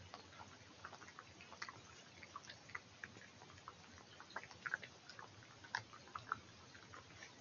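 European badger snuffling and rooting through grass: a faint, irregular patter of small clicks, sniffs and rustles, with a few louder clicks in the second half.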